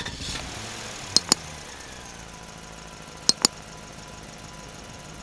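New Holland Fiat 480 tractor's diesel engine running steadily while it drives a boom air sprayer through the crop. Two pairs of sharp double clicks come about two seconds apart.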